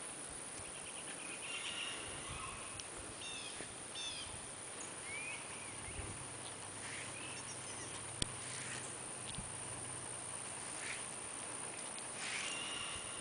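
Outdoor rural ambience: a steady background hiss with scattered short bird chirps, and one sharp click about eight seconds in.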